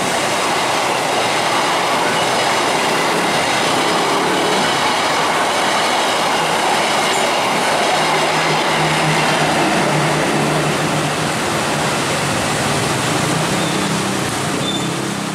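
Passenger train passing close by at speed: a loud, steady rush of steel wheels on the rails, easing off near the end.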